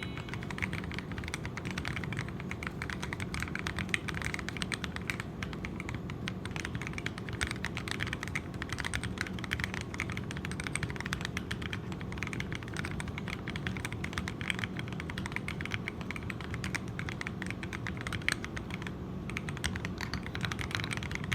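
Steady, fast typing on a custom hot-swap 40% mechanical keyboard with KAM-profile keycaps: a continuous run of key clacks.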